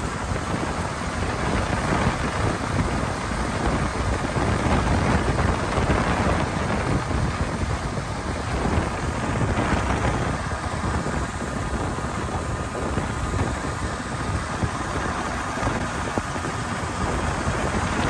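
Strong wind buffeting the microphone as a steady rumble, over a running diesel engine: the John Deere 4850 tractor's 7.6-litre turbocharged six-cylinder driving the grain cart's unloading auger.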